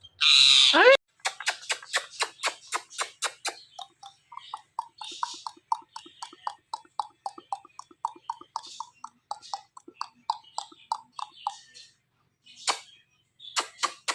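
Ringneck parrot gives one loud falling screech, then a long run of rapid clicks and short chattering notes, about four to five a second, with a short pause near the end.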